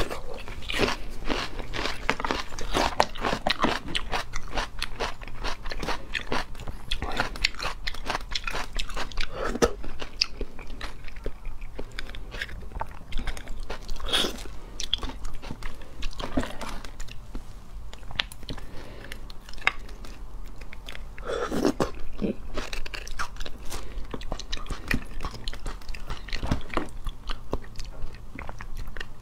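Close-miked eating of braised beef marrow bones: continuous wet chewing, biting and mouth clicks, with several louder bites scattered through.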